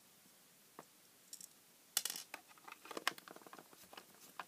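Faint clicks and taps of a small screwdriver working on the screws of a plastic light housing, with a sharper click about two seconds in and scattered small clicks after it.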